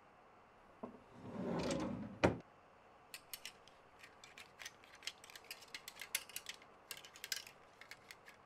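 A knock and a brief rush of noise, then one sharp click, followed by a run of small, irregular clicks and taps like a small metal mechanism being handled.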